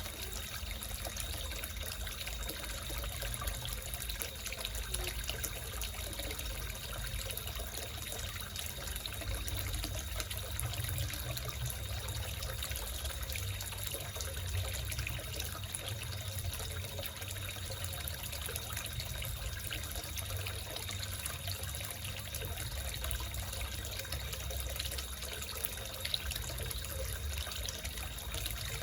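Water trickling steadily into a small koi fish pond, an even splashing that runs on without a break.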